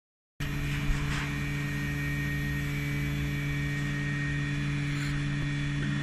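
Vacuum pump running with a steady hum, pulling a vacuum on a 100 L vacuum dual planetary mixer's vessel during a vacuum test.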